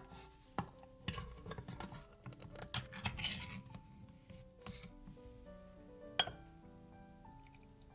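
Kitchen handling sounds over background music: clinks and scrapes of dishes and utensils, bunched in the first few seconds, with one sharp clink about six seconds in.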